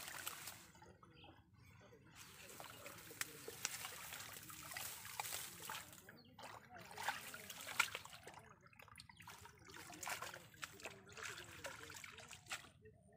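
Hands sloshing and splashing in shallow muddy water inside a wooden-framed fish trap, with water trickling, in irregular bursts separated by brief pauses.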